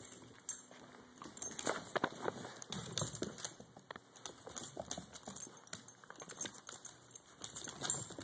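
Dachshunds' claws clicking and scrabbling on a hardwood floor as two dogs play, in irregular quick taps.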